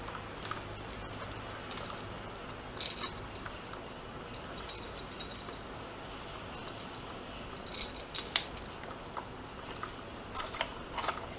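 Light clicks and small metallic rattles of copper ground wire being twisted and worked onto an electrical box and outlet: a few sharp ticks about three seconds in, and a cluster near the end. Behind them, a high, rapidly pulsed trill lasts about two seconds in the middle.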